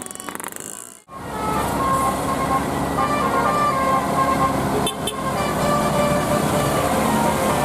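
A telolet multi-tone bus horn on a Safana bus plays a quick tune of short stepped notes over engine and traffic rumble. The sound drops out sharply for an instant about a second in, then the horn tune carries on.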